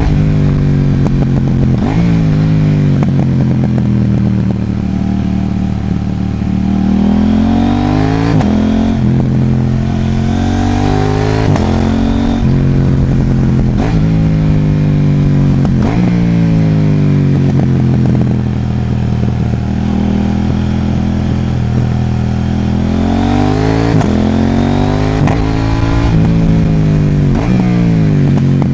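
KTM 790 Duke's parallel-twin engine, fitted with a Mivv aftermarket exhaust, under way: the pitch climbs under throttle and drops sharply at each gear change, several times over, with stretches where it winds down as the throttle closes.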